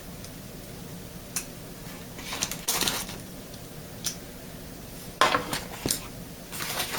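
Packaging rustling and clicking as a new replacement laptop battery is unpacked by hand. The sound comes in short irregular bursts, with small clusters about two and a half and five seconds in.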